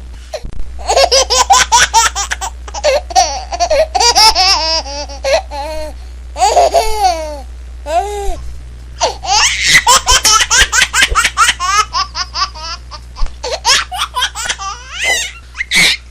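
A baby laughing hard in runs of quick, high-pitched giggles, with short breaks between the runs.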